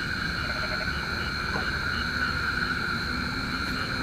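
Night chorus of frogs and insects: steady high trilling with a call that pulses a few times a second, over a low rumble.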